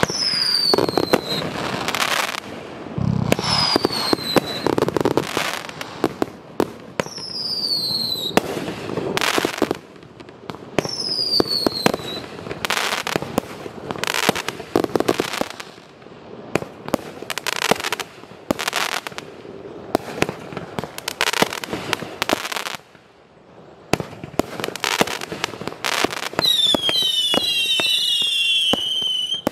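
JD Fireworks 'Husker Do's' 25-shot cake firing shell after shell, each with bursts and crackle. Several shots carry a whistle that falls in pitch, about every four seconds early on. Near the end several whistles sound together.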